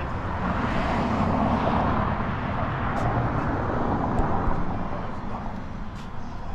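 A passing vehicle outdoors: its noise swells over the first second or two and fades away over the next few seconds, over a steady low rumble.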